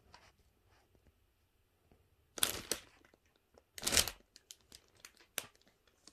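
Clear plastic sheet crinkling as a cat moves under it: two loud crinkling bursts, about two and a half and four seconds in, with lighter crackles after.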